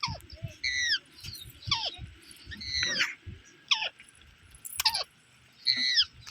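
Parrot giving a series of short, sharp calls, each sliding down in pitch, with brief pauses between them.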